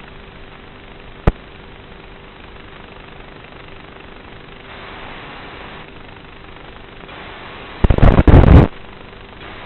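Steady hiss of static with a faint hum, broken by a sharp click about a second in and a loud crackling burst of static, under a second long, near the end.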